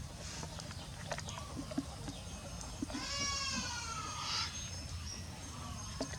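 A little girl's drawn-out, high-pitched yawn, heard once about three seconds in and lasting about a second and a half, its pitch dipping, then rising and falling away.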